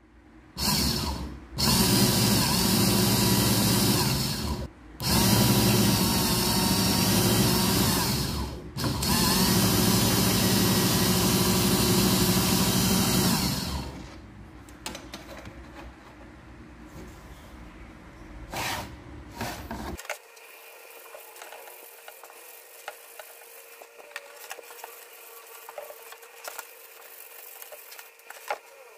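An electric power tool runs in three long spells with brief stops between them. Then it stops, leaving quieter clicks and a faint steady hum.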